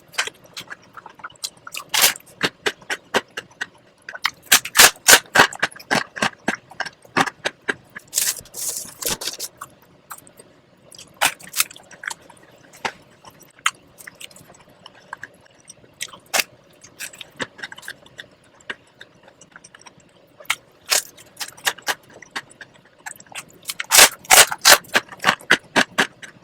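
Close-miked eating sounds: chewing, with irregular clusters of sharp clicks and short scrapes.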